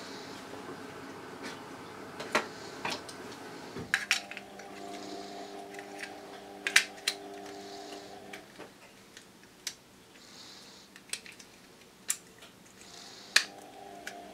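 Peak Design action camera mount parts clicking and tapping as they are handled and set on a tabletop: about a dozen irregular sharp clicks over a steady faint hum.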